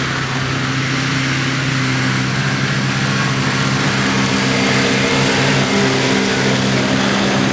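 Heavy construction machinery running steadily, its diesel engine a constant low drone under an even hiss.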